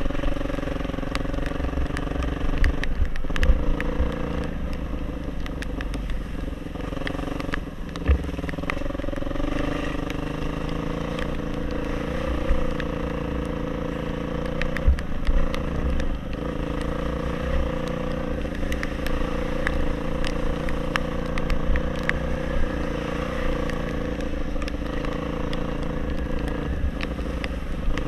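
Off-road motorcycle engine running steadily while riding, its pitch rising and dipping slightly, with occasional sharp knocks.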